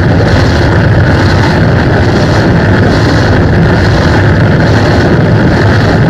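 Electric guitar played through an effects pedalboard, heavily distorted into a loud, steady wall of noisy sound with a faint pulsing in its upper range.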